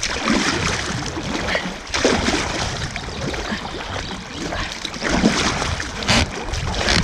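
Water rushing and splashing around a small paddled boat on a river current, with a few sharper splashes about two seconds in and again near the end.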